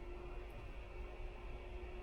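Faint steady electric hum with one constant mid-pitched tone and a light hiss, from a portable electric heater running on high off a portable power station's inverter, drawing about 1200 watts.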